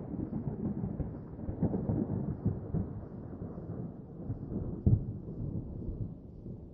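Thunder rumbling and slowly dying away, with a few sharper crackles and one louder crack about five seconds in.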